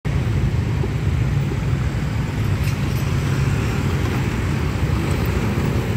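Dense city street traffic: motorbikes and cars driving across a level crossing, with a steady low hum of engines.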